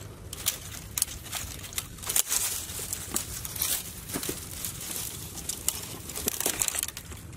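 Dry dead branches and grass rustling and crackling as sticks are gathered by hand, with irregular sharp twig cracks.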